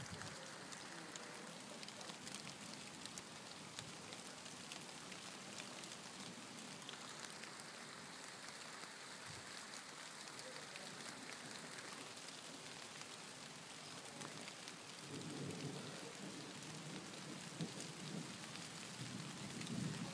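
Steady rain falling, with many small drop ticks. A low rumble swells in the last few seconds.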